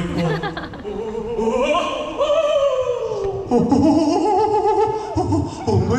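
A voice singing long, sliding notes with vibrato in an operatic style, part of a live vocal performance.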